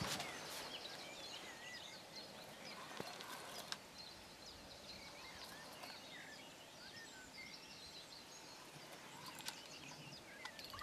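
Faint birdsong: many songbirds chirping and whistling at once, with a couple of soft clicks.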